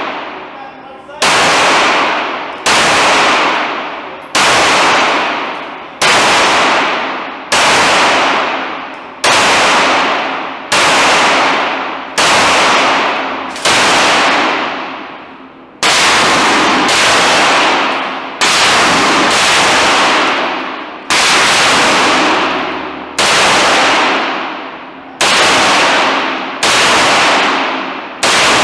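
Single gunshots at an indoor range, one about every one to two seconds, each with a long echoing tail off the range walls: first a Glock 17 9mm pistol, then a shoulder-fired gun.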